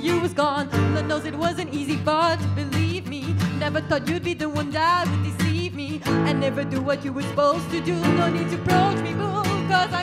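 Live music: a woman sings a soulful, wavering melody over strummed acoustic guitar.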